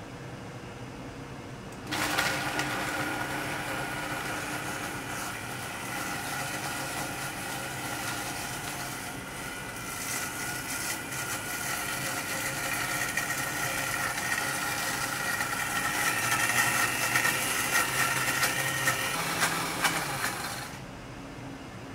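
Countertop blender motor starting suddenly about two seconds in and running steadily as it purees basil, garlic, parsley, almonds and pine nuts in olive oil into pesto. It grows louder toward the end and then cuts off.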